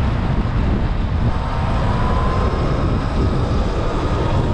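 Heavy wind buffeting the microphone while riding a Sur-Ron X electric dirt bike at speed into a strong headwind, with a faint high whine that rises slightly about two seconds in.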